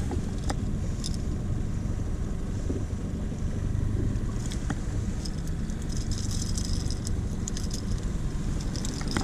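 Boat motor running steadily with a low rumble while trolling. Light metallic clicks and rattles from pliers and lure hooks come on top as a walleye is unhooked, more of them about six to eight seconds in.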